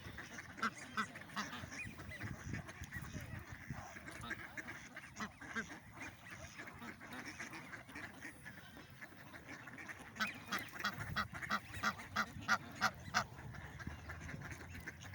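Waterbirds giving short honking calls, not as loud as a goose's, scattered at first and then in a quick run of about three honks a second starting about ten seconds in.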